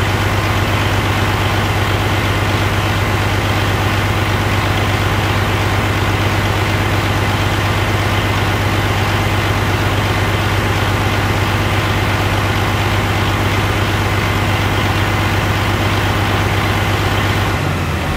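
Detroit Diesel DD13 12.8-litre inline-six diesel engine idling steadily on a run stand, with a deep even hum. Near the end its note changes as it begins to wind down, being shut off.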